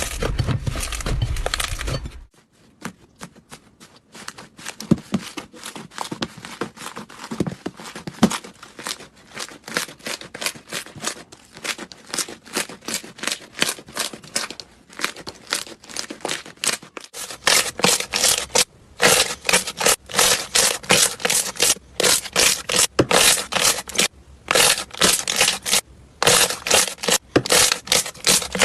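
Slime being squeezed and worked by hand: rapid sticky crackles and pops. It drops to quieter, sparser crackling about two seconds in and grows loud and dense again over the last third.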